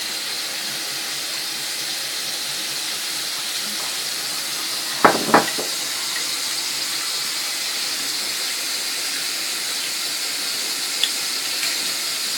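Onions frying in oil in a kadhai, giving a steady sizzle. Two sharp knocks come about five seconds in, half a second apart.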